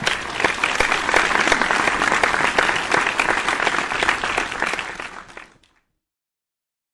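Audience applauding, many hands clapping together, which cuts off suddenly near the end.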